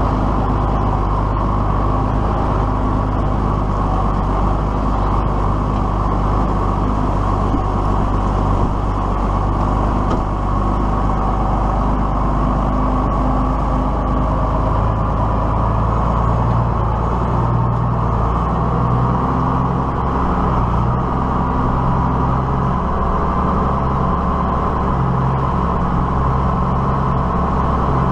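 A diesel tractor engine running steadily under work, its note shifting slightly about halfway through as engine speed or load changes.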